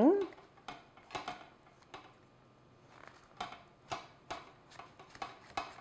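A spatula scraping and tapping along the inside wall of a metal cake pan as it is run around the edge of a baked cake to loosen it: a run of short, separate scrapes, about two a second.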